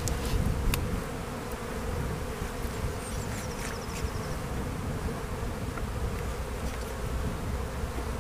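Honeybees buzzing steadily around an open hive, with a couple of faint clicks near the start.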